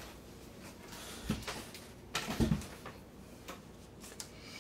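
Faint handling noise: light rustling of paper and small plastic bags of drills with a few soft clicks and knocks on a wooden table, the loudest a soft thump a little over two seconds in.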